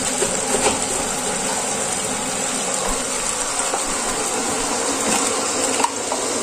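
Pan of chicken, potatoes and vegetables in water simmering on the hob: a steady bubbling hiss.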